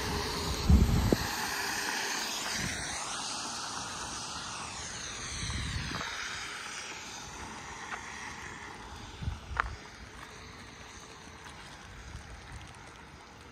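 A vehicle passing on the wet road, its tyre hiss fading away as it recedes. Low thumps of wind on the microphone come about a second in and again past the middle.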